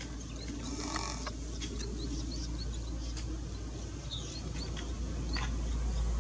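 Nestling birds begging: a string of faint, short, high chirps from the gaping young in the nest, over a steady low rumble that grows louder near the end.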